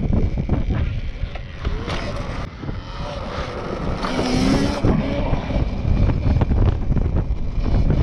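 Strong wind buffeting the microphone during a ride on an electric dirt bike, a dense rumble throughout, with a brief sharper, louder burst about four seconds in.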